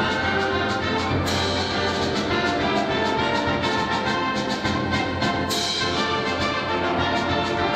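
Hockey goal song: brass-heavy band music with sharp hits about a second in and again about five and a half seconds in.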